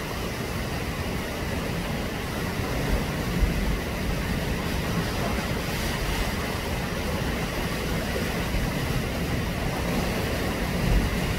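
Steady rumble of sea wind buffeting the microphone, with surf washing against the rocks below; the gusts swell about three seconds in and again near the end.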